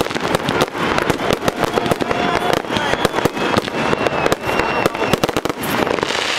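Aerial fireworks bursting overhead in a dense, rapid run of bangs and crackles.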